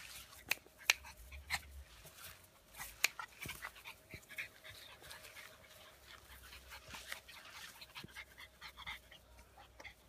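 Biewer Yorkie puppies scuffling and play-fighting in grass, with faint high squeaks and a scatter of sharp clicks, the loudest about a second in and again about three seconds in.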